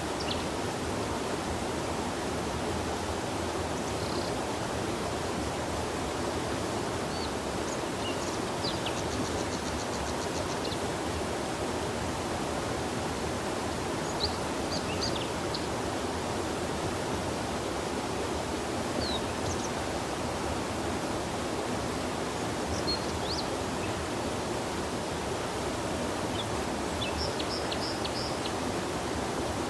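River water running with a steady rush. Small birds give short high chirps and quick trills at scattered moments over it.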